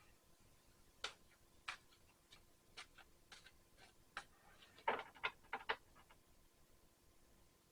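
Tarot cards being handled, making faint, irregular light clicks and taps, with a quick run of several clicks about five seconds in.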